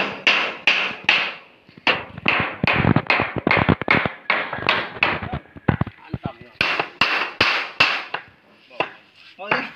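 A hammer driving nails into a wooden board: quick, evenly spaced blows, about three a second, in runs with short pauses.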